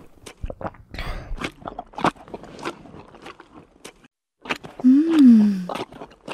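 Rapid crisp clicks and crunches of steak being cut and eaten. After a short pause comes the loudest sound, a brief vocal exclamation whose pitch rises and then falls.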